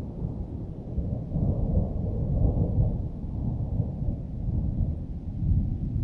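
Long rolling thunder rumble, deep and continuous, swelling twice, about two and a half seconds in and again near the end.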